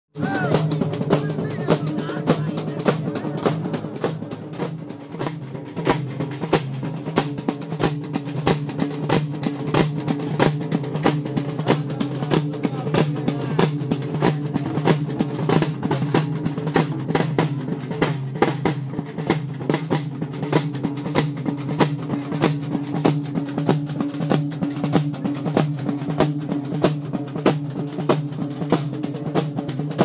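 A village drum band, with several large double-headed drums and side drums beaten with sticks, playing a fast, dense, driving rhythm over a steady low drone.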